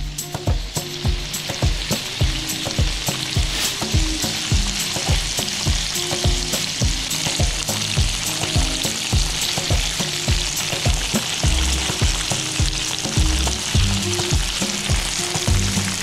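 Cubes of extra-firm tofu sizzling steadily as they fry in hot oil in a nonstick pan, turned now and then with a fork. A background track with a steady beat runs underneath.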